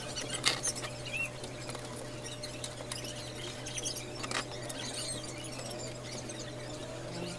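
Rag wiping over a motorcycle's glossy plastic fairing, giving scattered small squeaks and light clicks, over a steady low hum.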